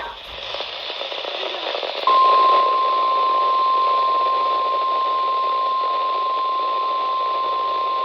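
Weather-radio receiver hiss and static, then about two seconds in a loud, steady single-pitch alert tone starts and holds, the NOAA Weather Radio warning alarm tone that announces a warning broadcast is about to follow.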